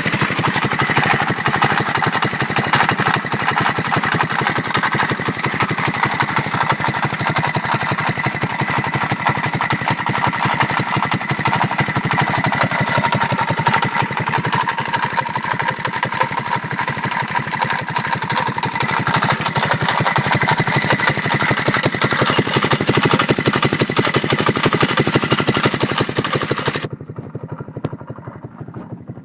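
150cc GY6 single-cylinder four-stroke engine in a Yerf Dog Spiderbox running with an abnormal rattle, a dense fast clatter over the engine note. Near the end the sound drops off sharply.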